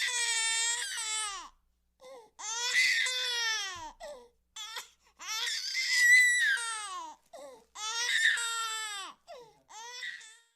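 Baby crying sound effect: five drawn-out wailing cries, each one to two seconds long and falling in pitch at the end, with short sobbing catches between them and dead-silent gaps.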